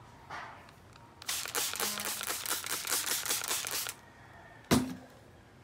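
Hand trigger spray bottle pumped quickly, a fast run of short hissing sprays lasting about three seconds as disinfectant is misted over a plastic parcel bag. Near the end, a single sharp knock.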